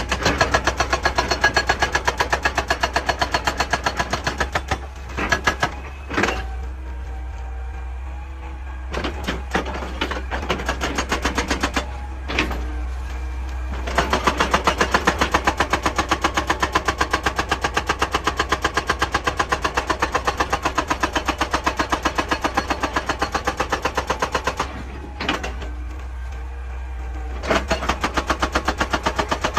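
Excavator-mounted hydraulic rock breaker hammering rock in a rapid, even stream of blows over the excavator's running engine. The hammering stops for several seconds twice, with only a few short bursts between, leaving the engine running low.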